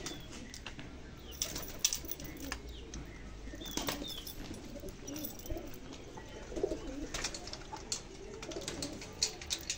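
Pigeons cooing softly, with scattered short clicks and a few brief high chirps.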